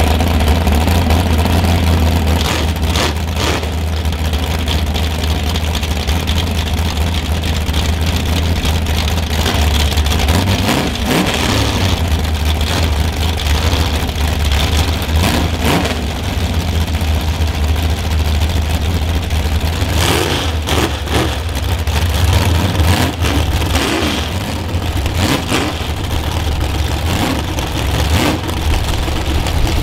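A car engine idling steadily, with a few sharp knocks scattered through it.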